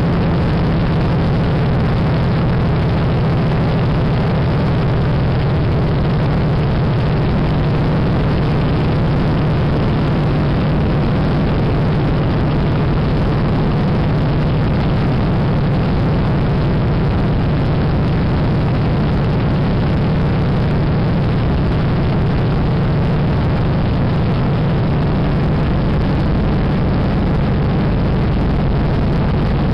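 De Havilland Canada DHC-2 Beaver floatplane's engine and propeller running steadily in flight, heard from inside the cabin as a loud, even drone.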